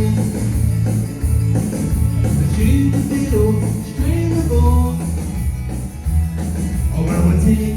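Country band playing an instrumental passage, with a pulsing bass line under a melody on guitar.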